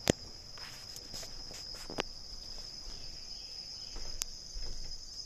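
Steady high-pitched chorus of crickets, with a few sharp clicks or knocks on top, the loudest right at the start.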